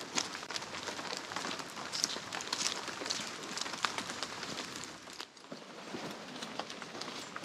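Footsteps crunching through dry leaf litter and twigs on a forest floor, an uneven run of crackles and snaps that lets up briefly about five seconds in.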